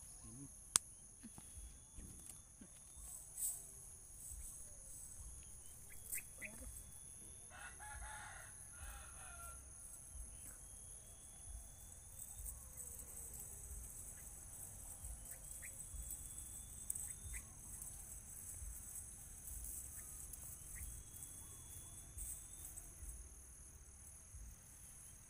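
A rooster crowing once, about eight seconds in, over a steady high insect drone, with short high chirps every couple of seconds. A single sharp click comes just under a second in.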